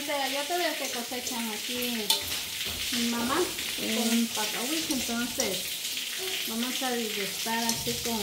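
Diced tomato, onion, celery and sweet pepper sizzling in a hot stainless steel pan as they are stirred with a fork, with scattered clicks of the fork against the metal. A voice sounds quietly underneath.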